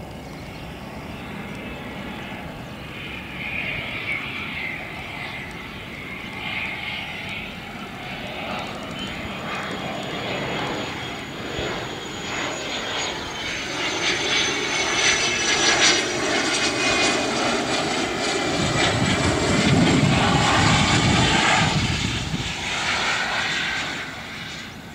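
Cessna Citation Bravo business jet's twin Pratt & Whitney Canada PW530A turbofans on landing approach: a high whine over a broad engine rush that grows louder as the jet closes in, dips slightly in pitch partway through, and is loudest with a low rumble as it passes closest, then fades near the end.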